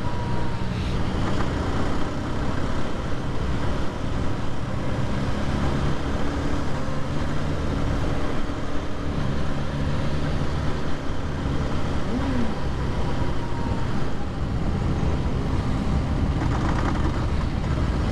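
Motorcycle engines running steadily at low speed, a dense low rumble whose pitch shifts as the throttle changes, with a short pitch glide about twelve seconds in.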